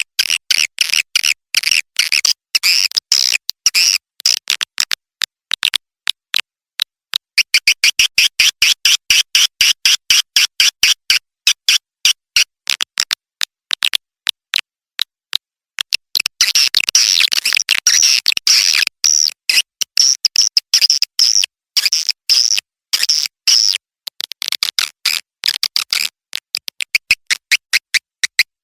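Recorded swiftlet lure call: rapid, high, chittering chirps and clicks, in dense runs with a sparser stretch of single clicks in the middle. It is the kind of call track played in swiftlet houses to draw birds in to nest.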